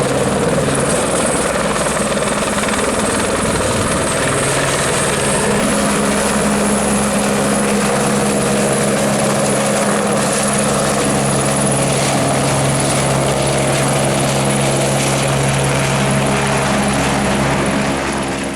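Helicopter running steadily: a loud, even noise of engine and rotor with a constant hum.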